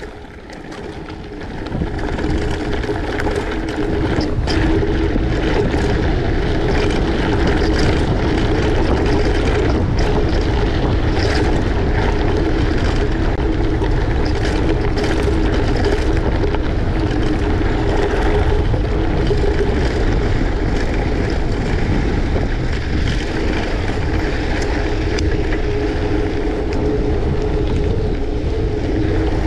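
Wind buffeting the microphone, with steady rolling noise from the moving ride. It builds over the first few seconds as speed picks up, then holds steady.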